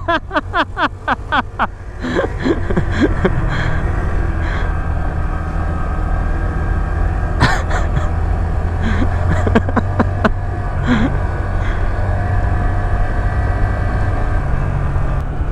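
Honda Grom's 125 cc single-cylinder four-stroke engine running steadily under way on a dirt and sand trail, heard from the bike with wind on the microphone.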